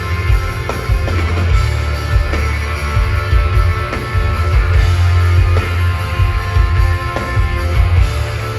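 Loud heavy rock music with electric guitar, drums and strong, pounding bass.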